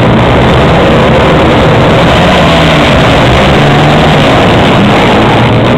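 A field of dirt-track racing motorcycles revving on the start line and then launching together, engines at full throttle as the pack accelerates away into the first turn. Loud throughout.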